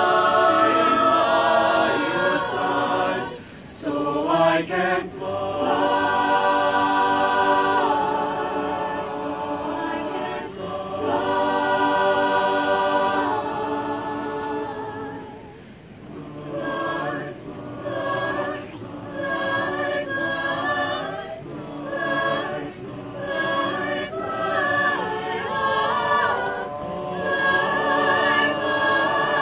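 Mixed-voice chamber choir singing a cappella in close harmony. Long held chords break off briefly about three seconds in and again mid-way, after which the phrases turn shorter and more rhythmic.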